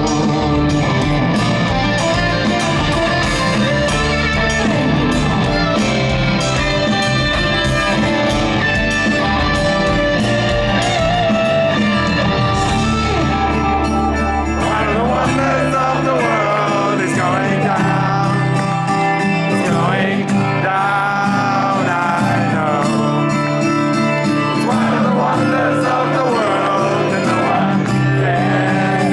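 Live progressive rock band playing, with electric guitar over bass and drums. Wavering sung lines come in about halfway through.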